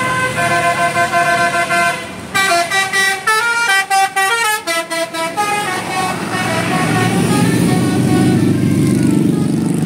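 Tour bus's telolet multi-tone musical horn playing a quick tune of stepped notes, then the bus engine running for the last few seconds.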